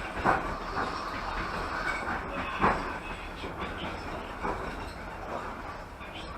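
Passenger train carriage running along the line, heard from inside the car: a steady rumble of wheels on rail with two sharp knocks, one just after the start and a louder one a little before three seconds in, as the wheels cross rail joints.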